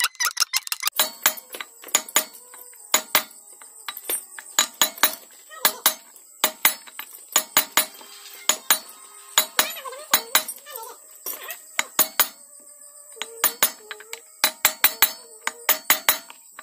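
Hammer blows on a steel drift rod, driving a new front wheel bearing into a motorcycle's wheel hub: sharp metallic clinks, roughly two a second with short pauses and some quick pairs, each with a brief ring.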